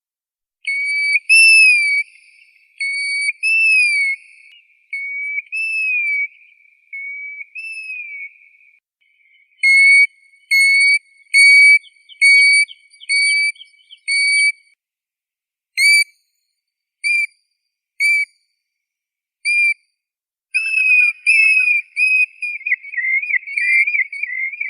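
Plover calls: clear, slurred whistles that rise and fall, given every second or two, then a run of short even whistled notes at about one and a half a second, a few single notes spaced further apart, and near the end a quicker rippling run of notes.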